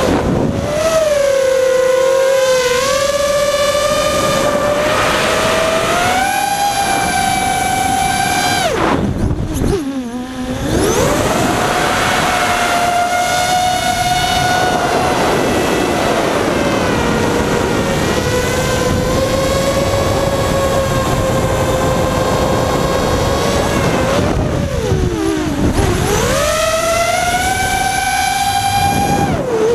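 FPV quadcopter's electric motors and propellers whining, the pitch rising and falling with the throttle. Twice, about ten seconds in and near the end, the whine dips sharply and then climbs back up.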